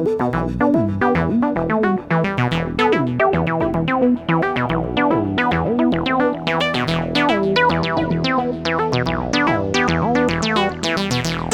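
Electronic music: a fast, busy sequence of short synthesizer notes, many with quick downward pitch bends, growing brighter over the passage.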